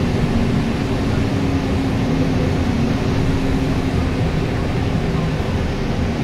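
Steady drone of a double-decker bus heard from inside the upper deck: engine and running noise with a constant low hum.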